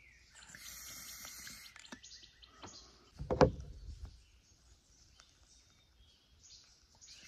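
A hit drawn through a small water bubbler pipe: faint drawing and bubbling, with one louder burst about three and a half seconds in.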